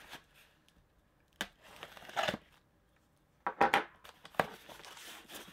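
Cardboard shipping box being cut open with a box cutter and its taped flaps pulled apart: several short sharp clicks and scraping, ripping rasps, the loudest about three and a half seconds in.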